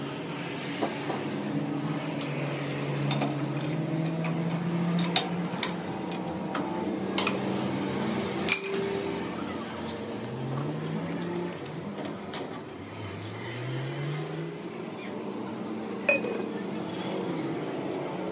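Scattered light metal clinks and taps from steel parts being handled at a lathe, with one sharper knock about eight and a half seconds in, over a low steady workshop hum.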